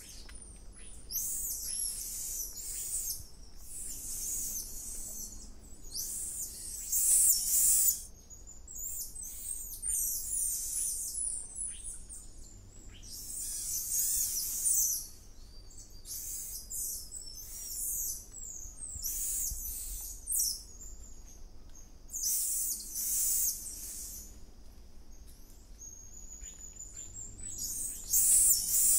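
Golden lion tamarins calling: very high-pitched chirps and whistles in repeated bouts of a second or two. The calls are loudest about seven seconds in and again near the end.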